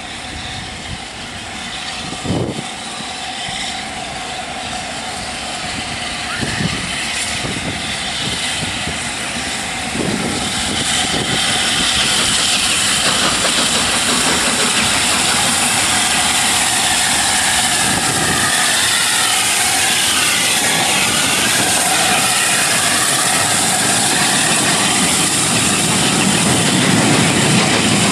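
LNER A4 three-cylinder Pacific steam locomotive Bittern and its train running through a station at speed. A rushing rumble of the working engine and wheels on the rails grows steadily louder as it approaches, and is loudest near the end as the locomotive passes.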